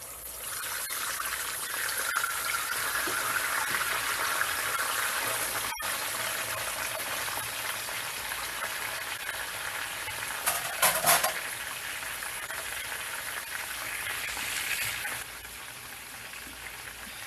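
Whole chicken deep-frying in very hot oil: a steady sizzle, with a burst of loud crackling pops about eleven seconds in, settling to a quieter sizzle near the end.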